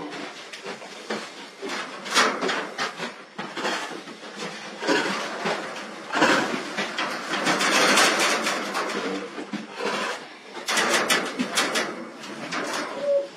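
A tiger rubbing and pushing against a welded wire-mesh cage, making the mesh rattle and scrape in irregular bursts, loudest in the middle.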